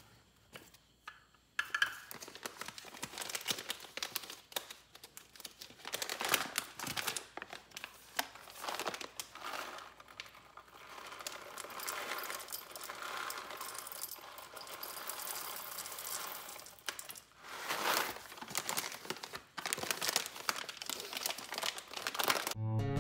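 Packaging crinkling and rustling in irregular bursts, with small clicks and knocks of kitchen handling while coffee is being made. It starts about a second and a half in.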